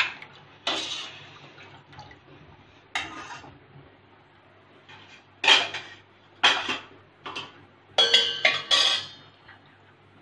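Steel ladle scraping and clinking against a steel pan of milk as it is stirred and scooped, with milk pouring back off the ladle; several separate strokes, the busiest clatter near the end.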